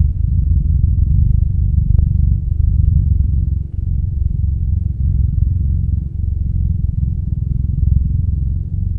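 A loud, steady low rumble, with a faint click about two seconds in.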